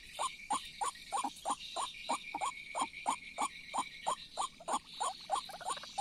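White-breasted waterhen (ruak-ruak) calling: a steady, even run of short notes, about three a second, over a steady high buzz.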